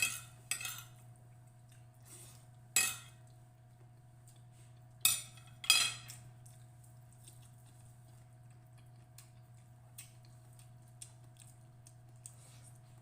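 Cutlery clinking against a plate during a meal: five sharp clinks in the first six seconds, then only small faint clicks.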